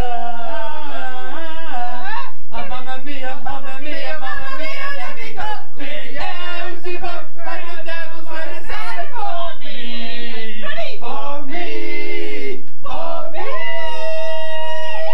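Four men singing a cappella together in harmony, holding a long chord near the end.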